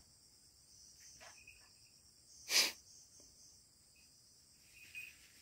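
Faint, steady high-pitched insect chorus of crickets or cicadas, with a few small chirps. About halfway through there is one short, loud burst of noise.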